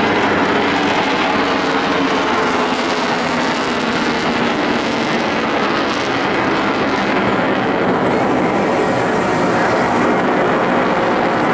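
Eurofighter Typhoon's twin Eurojet EJ200 jet engines running hard in a display pass, loud and steady; the hiss at the top of the sound thins out from about seven seconds in.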